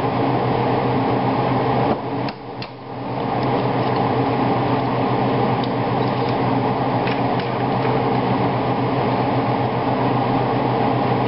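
A steady mechanical hum that drops away for about a second about two seconds in, with a few faint light clicks over it.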